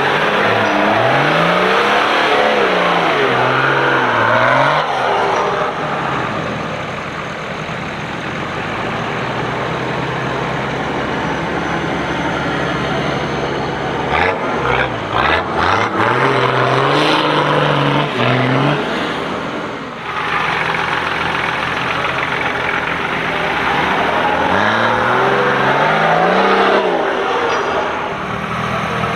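Off-road 4x4 engines revving hard under load as vehicles crawl up a steep dirt trench, the pitch rising and falling again and again. About halfway through come a few quick, choppy throttle blips.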